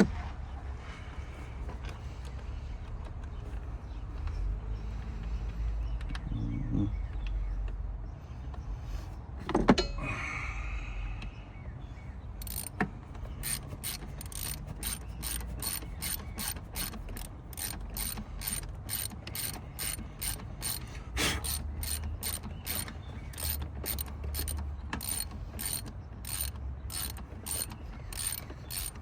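Hand socket ratchet clicking as a bolt is turned down in the engine bay. The clicks come in a steady run of about two a second from roughly halfway in, after some handling noise and a single knock.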